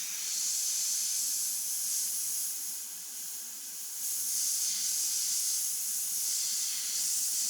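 Airbrush spraying pink paint, a steady high hiss of air and paint that eases off a little in the middle and comes back stronger.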